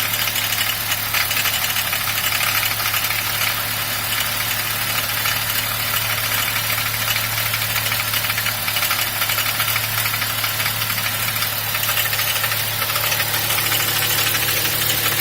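BMW 1 Series engine idling steadily with a fast, even clacking from the engine.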